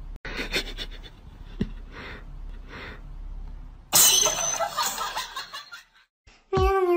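Domestic cat hissing sharply about four seconds in as a socked foot prods it, after a run of soft breathy puffs. Music with humming starts near the end.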